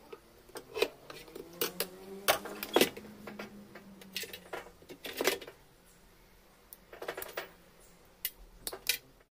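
Scattered clicks and light clatter of parts being handled as an electric hot plate is rewired: the base, wires and terminals knock against the stainless steel drip pan. The sharpest knocks come about two to three seconds in and again about five seconds in.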